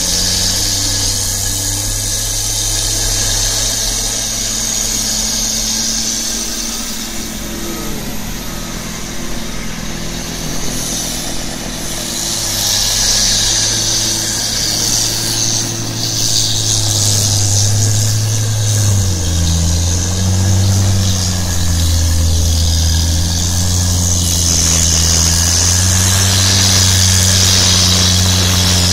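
Engine of a large tractor-mounted snowblower running steadily under load while the blower throws snow, with a high hiss over it. About two-thirds of the way through, the engine note drops lower and grows louder.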